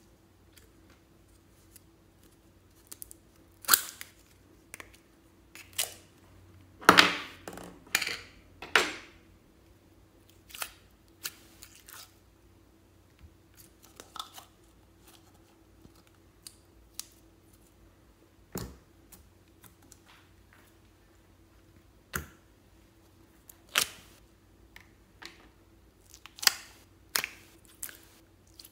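Store-bought slime being handled and peeled out of small plastic tubs into a bowl of clear slime: scattered sticky squelches, pops and crackles, with the plastic tubs clicking. The loudest cluster comes about seven to nine seconds in.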